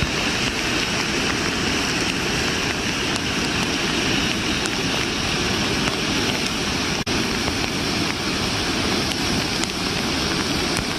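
Heavy rain pouring down and floodwater rushing past, a steady, loud wash of water noise.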